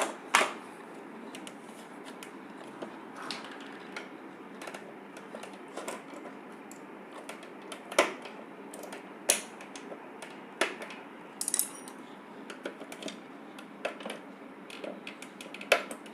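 Irregular clicks, taps and knocks of a mixer grinder's plastic and metal parts being handled and pulled apart by hand, a few louder knocks among them.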